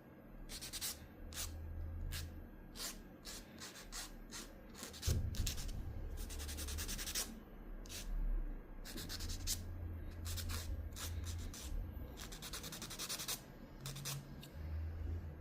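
Nail file rubbed in short, irregular back-and-forth strokes over a fake nail, smoothing its surface.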